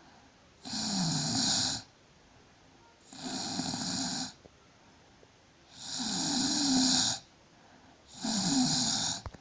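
A woman snoring: four snores spaced about two and a half seconds apart, each lasting a little over a second, with quiet breaths in between.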